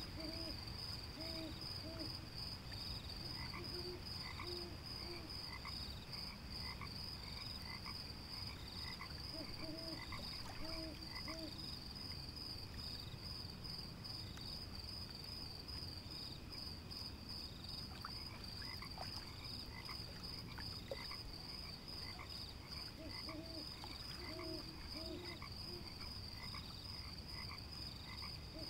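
Night chorus: frogs croaking in short runs of three or four calls over a steady, high, rapidly pulsing insect trill.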